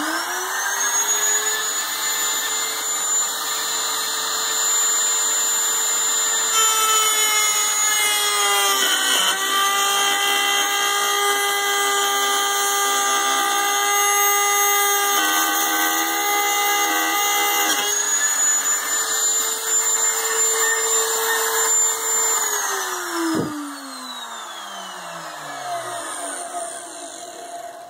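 Electric router mounted in a homemade router table, spinning up to a steady high whine, then dropping in pitch under load while its 1/2-inch straight bit cuts a rabbet in pine from about a quarter of the way in to about two thirds. It returns to its free-running whine, is switched off, and winds down with a falling whine, with a single knock as it slows.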